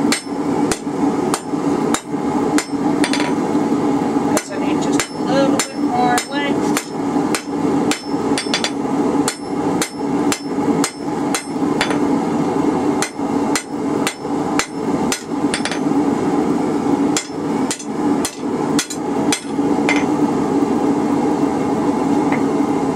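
Hand hammer striking red-hot half-inch rebar on an anvil, about two to three blows a second, drawing the bar out into a taper. The blows stop about three seconds before the end, leaving a steady hum.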